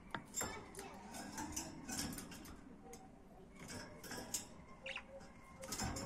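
Pet budgerigars twittering softly, with many scattered sharp clicks and ticks and a short chirp near the end.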